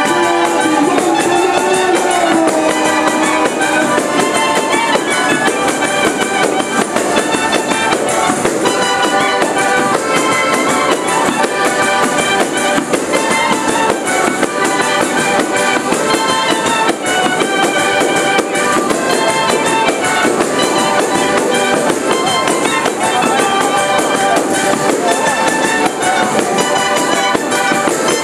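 A tarantella played live by a folk band: a reed woodwind and a trumpet carry a busy melody over accordions. Dense, fast clicking percussion runs beneath.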